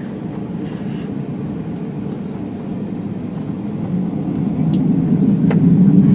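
Boeing 737-800 cabin noise: the CFM56-7B jet engines running at taxi power give a steady low rumble that grows louder about four seconds in. A brief click sounds near the end.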